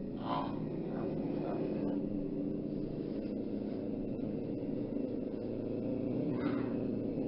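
Tiger growling: a continuous low rumble, with a few short, sharper bursts near the start and again about six and a half seconds in.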